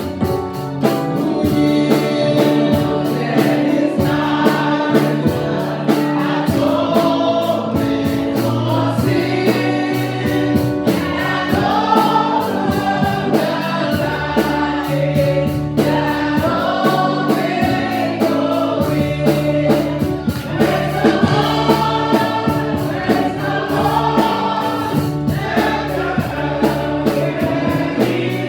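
Gospel choir singing a praise and worship song with instrumental accompaniment and a steady beat.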